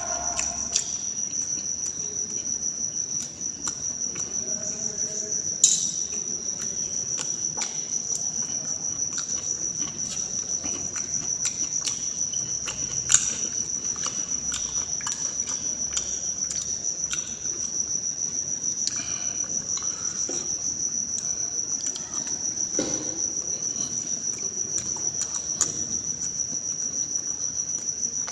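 Crickets trilling in one steady, unbroken high-pitched note. Short clicks from eating and handling a steel plate break in here and there, two of them sharper, about six and thirteen seconds in.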